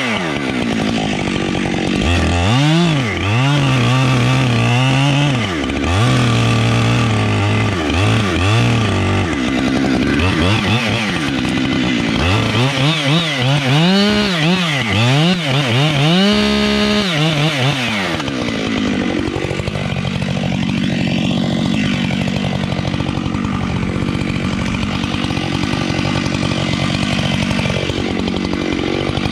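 Husqvarna 592XPG chainsaw running. For the first half its engine speed rises and falls again and again; from a little past the middle it holds a steadier, slightly wavering pitch.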